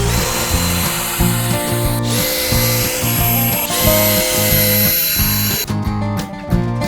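Electric power tool, like a drill, running with a steady high whine in three stretches broken by brief gaps, over background music. The tool stops near the end, leaving only the music.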